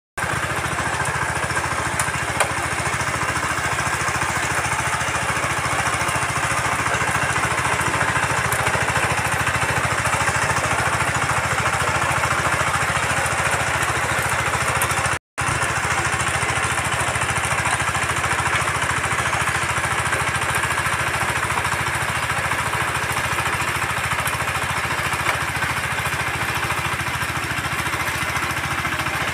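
Walk-behind power tiller's single-cylinder diesel engine running steadily under load while its rotary tines till the soil. The sound drops out for a split second about halfway through.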